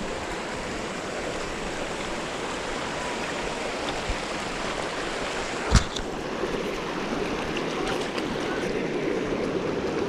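Creek water rushing steadily, with a single sharp knock a little over halfway through.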